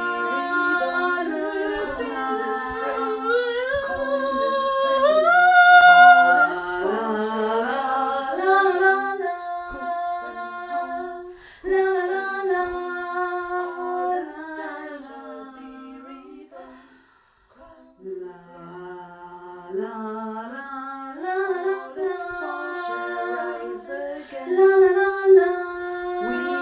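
Wordless a cappella singing and humming, several voices in harmony holding and gliding between notes. It fades almost to nothing about two-thirds of the way through, then picks up again.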